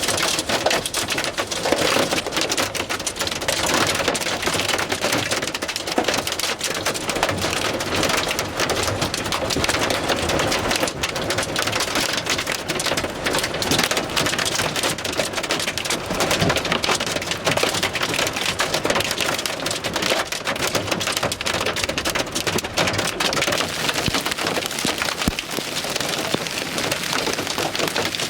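Heavy wind-driven rain and hail from a derecho squall line pelting down: a dense, steady clatter of countless small impacts.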